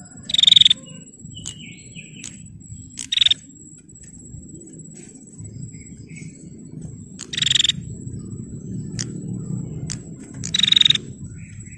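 Female prinia (prenjak) giving short, rapid buzzy trills, four times a few seconds apart, over a steady thin high whine and a low background rumble.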